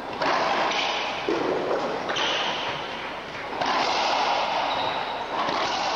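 Racquetball rally: the ball is struck by racquets and hits the court walls, several sharp hits each ringing on in the echoing court.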